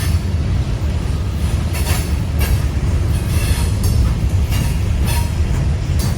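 Long freight train climbing a grade: a steady low rumble, with short, irregular high wheel squeals and clanks every second or so.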